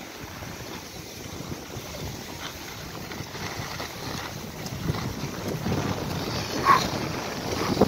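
Wind buffeting the microphone and skis sliding over groomed snow during a downhill run, the rushing noise growing louder toward the end, with one short sharp sound near the end.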